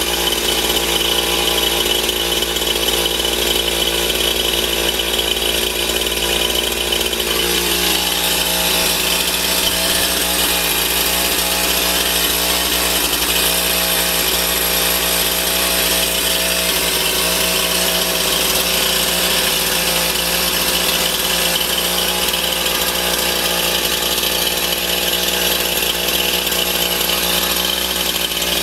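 Stihl MS 291 chainsaw's two-stroke engine idling steadily without cutting, its note settling slightly lower about eight seconds in.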